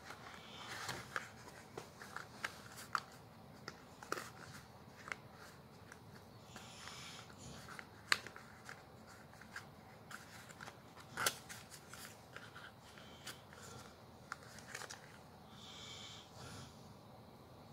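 Unboxing handling noise: a cardboard box and its black insert handled by hand, giving scattered clicks and taps and a few brief rustles.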